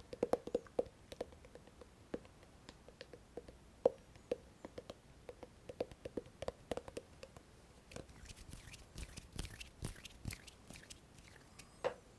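Close-miked ASMR hand sounds: a stream of irregular soft clicks and taps, turning into denser, brighter rustling, like rubbing, from about eight to eleven seconds in.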